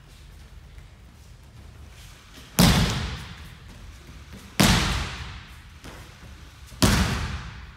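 Three aikido breakfalls (ukemi) on tatami mats, about two seconds apart. Each is a loud slap of body and hand hitting the mat, followed by about a second of echo from a large hall.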